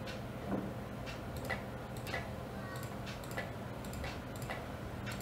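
Faint light ticking, roughly two ticks a second and slightly uneven, over a low steady hum.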